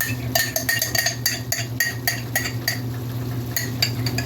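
Metal spoon scraping and clinking inside a glass jar of cheese sauce, quick irregular clinks with a light ringing, as the last of the sauce is scraped out into the pan. A steady low hum runs underneath.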